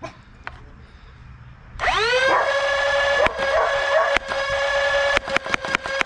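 Foxfire Talon flywheel blaster's Kraken motors spinning the Cyclone flywheels up with a rising whine that settles into a steady high hum, about two seconds in. Solenoid-pushed foam darts are then fired semi-automatically as sharp clicks: two single shots, then a quick uneven string of shots near the end.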